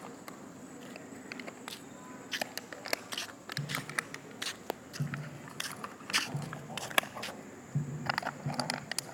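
Two dogs play-biting and tussling: clicks and scuffs of teeth and claws. From about three and a half seconds in, short low growls come again and again.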